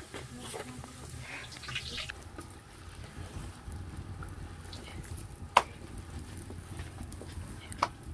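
Flatbread dough frying in a pot of hot oil over a wood fire: a steady low sizzle, with two sharp clicks, one about halfway through and one near the end.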